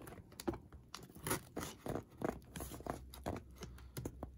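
A knife blade slitting the packing tape on a cardboard shipping box: a series of short, irregular scratching and tearing strokes.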